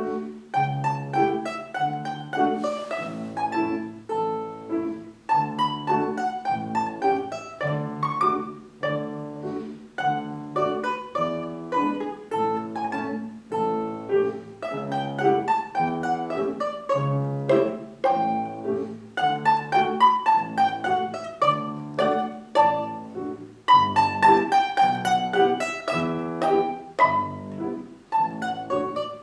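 Music on a plucked string instrument: a fast melody of quick runs of notes over lower bass notes.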